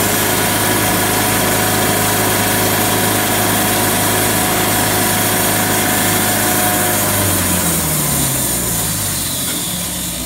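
Portable band sawmill running steadily, its band blade cutting through a black acacia log. About seven seconds in, the motor's pitch falls as it slows down.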